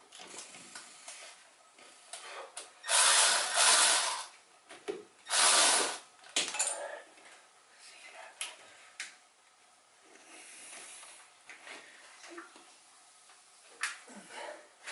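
Cordless electric ratchet running in two bursts of about a second each, a few seconds in, tightening fasteners on a truck engine, with light clicks and knocks of tools and parts before and after.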